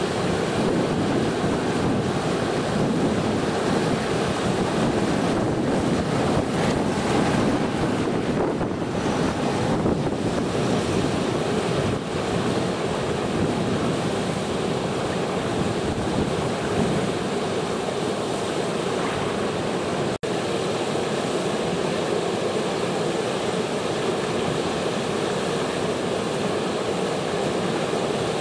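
Floodwater pouring over a river weir after heavy rain, a steady loud rush of churning water, broken by a split-second dropout about two-thirds of the way through.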